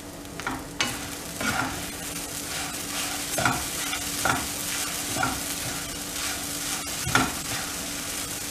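Wooden spatula stirring sago-pearl khichdi in a frying pan, scraping through the pearls and against the pan about once a second over a steady sizzle as it simmers on low flame.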